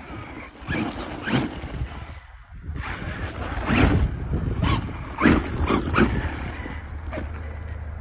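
Electric RC car revving in several short bursts, its tyres spinning and skidding on loose gravel and slush.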